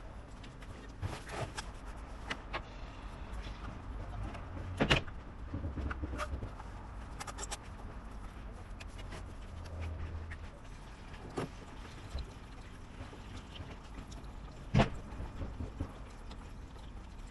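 Scattered knocks and clicks with two sharp bangs about ten seconds apart, over patches of low rumble.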